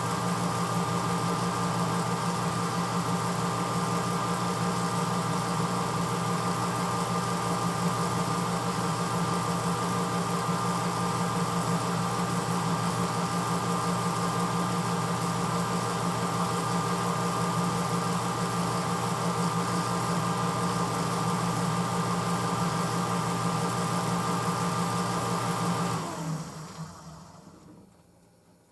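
1986 Hotpoint Potwasher dishwasher's motor running steadily with a hum and a thin whine. Near the end it shuts off and winds down to quiet, as the cycle ends.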